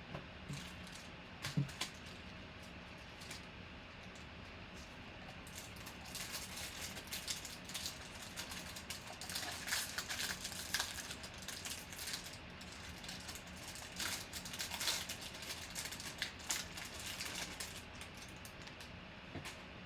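Trading-card packs and their packaging being handled and opened: intermittent crinkling and rustling with light clicks, busiest in the middle and fainter near the start and end.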